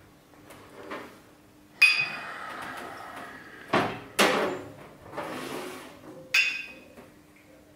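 Glass liquor bottle and shot glasses knocking and clinking on a tabletop, with liquid poured into the glasses between the knocks. Four sharp knocks: the loudest, with a bright ring, about two seconds in, two close together near the middle, and another ringing one near the end.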